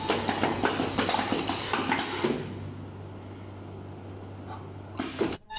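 Face mask earloop welding machine running with rapid mechanical clicking and clattering. About two seconds in, it drops to a steady low hum, and the clattering comes back near the end.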